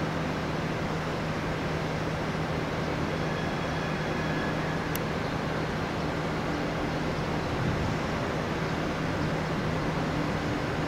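CP Series 2240 electric multiple unit approaching slowly along the station tracks: a steady low hum over a constant rumble.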